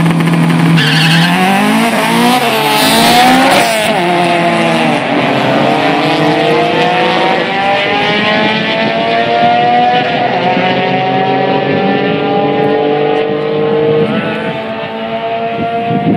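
Drag-racing cars, an Acura Integra among them, launching off the line and accelerating hard down the strip. The engine pitch climbs and drops back at quick upshifts in the first few seconds, then rises slowly and steadily as the cars pull away down the track.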